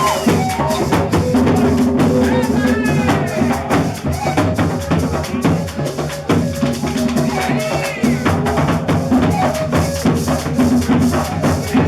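A gaita ensemble playing live: drums and shaken rattles such as maracas keep a steady beat over sustained low pitched instrument tones.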